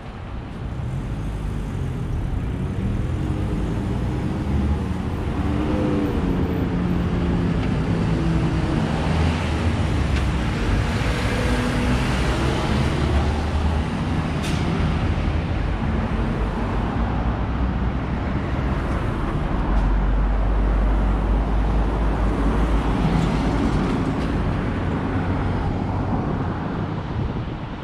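City road traffic passing close by, with a heavy vehicle's engine prominent for several seconds in the middle.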